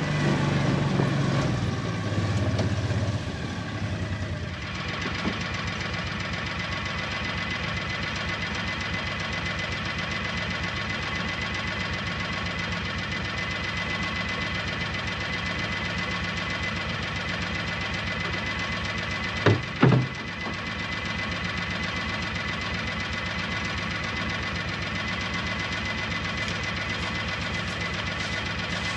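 A motor or small engine running steadily with a fast, even pulse, louder and lower for the first few seconds. Two sharp knocks come about two-thirds of the way through.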